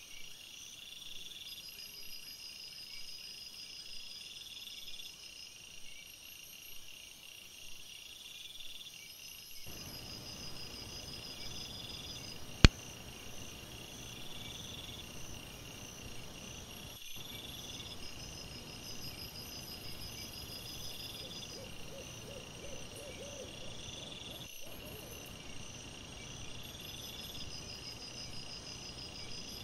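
Night insects, crickets by their sound, chirping in steady, regularly repeated pulses, with one sharp loud click about halfway through.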